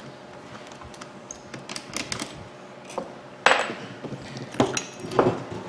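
Workbench handling noise while a Makita hammer drill is being taken apart: a few light clicks, then several sharp knocks and clatters, the loudest about three and a half seconds in, as a screwdriver is set down on the wooden bench and the drill's metal gear housing is handled.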